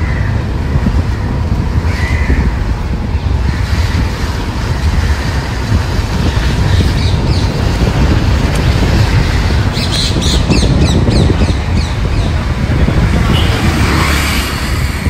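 Steady low rumble of riding on a motorbike, mostly wind buffeting the microphone. A crow caws once about two seconds in, and a quick run of high chirps comes about ten seconds in.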